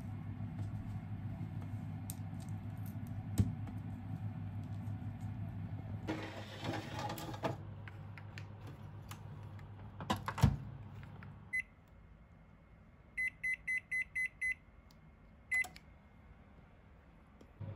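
A combination microwave oven being loaded and set. Chopsticks click lightly on a metal baking tray over a low hum, the tray slides into the oven and the door shuts with a knock. The control panel then beeps as its buttons are pressed: one beep, a quick run of six, then one more.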